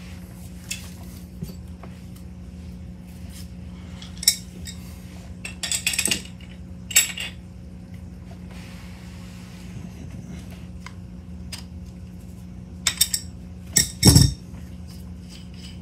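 Metal clinks and taps of an open-end wrench and steel fittings while a pressure gauge is threaded into an air bottle's adapter, a few scattered clicks with a heavier knock near the end.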